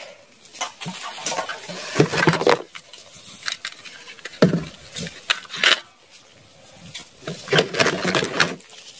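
Plastic toy guns clattering, knocking and scraping against each other and the cardboard box as a hand rummages through them and lifts one out, in irregular bursts of clicks and rustles.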